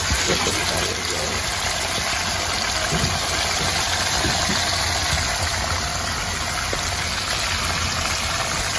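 Oil sizzling steadily around two whole red snappers frying in a steel pan, with a low steady rumble underneath.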